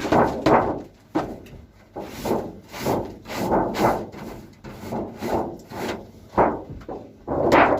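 Repeated quick scraping strokes, roughly two a second, as droppings and spilled compound feed are scraped out of a rabbit hutch.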